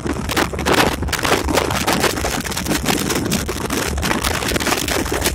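Inside the cab of a moving EMD SD24 diesel locomotive: its turbocharged V16 diesel engine drones low and steady under constant, irregular rattling and clattering of the cab over the track, with wind buffeting the microphone.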